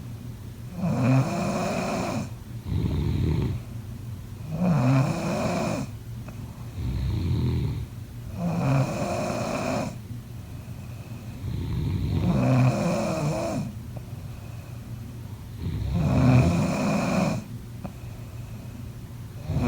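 A person snoring in a steady rhythm: a loud rasping snore about every four seconds, five in all, each followed by a softer breath out.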